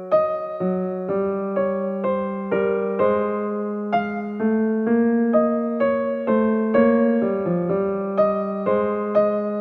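Background music: a gentle piano tune with notes struck at an even pace, about two a second.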